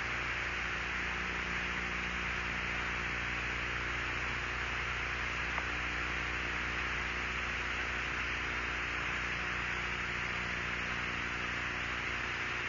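Steady hiss with a low electrical hum underneath: an open radio/broadcast audio channel with nobody talking.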